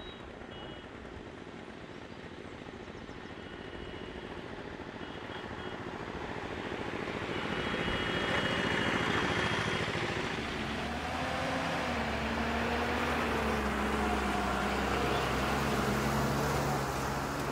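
A small single-cylinder stationary engine chugging in rapid pulses, overtaken by the swelling noise of a truck's engine and tyres that grows louder over the first eight or nine seconds and then stays close, with a low engine drone and a wavering pitch heard in the second half.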